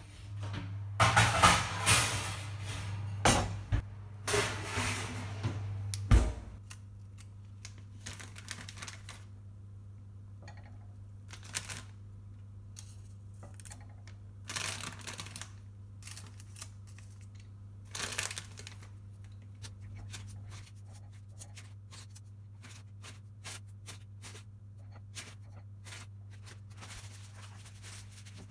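Kitchen handling noise: a few seconds of loud clattering and rustling ending in a sharp thump about six seconds in, then scattered light taps and rustles as marshmallows are set one by one onto mashed sweet potato in a glass baking dish, over a steady low hum.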